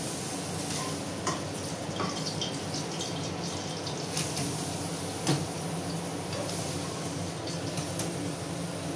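Kitchen chimney (range-hood extractor fan) running steadily: an even whooshing hiss with a low hum, and a few faint clicks of utensils.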